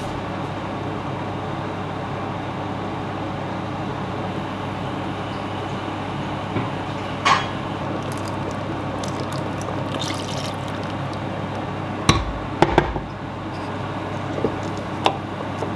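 Rinse water sloshing in a glass blender jug and pouring out into a stainless steel cooking pot, with a few sharp knocks of glass against the pot in the second half.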